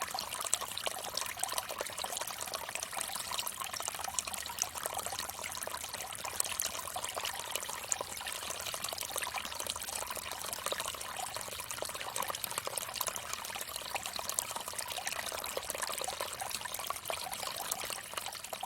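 Water trickling steadily from a bamboo fountain spout, splashing into a basin.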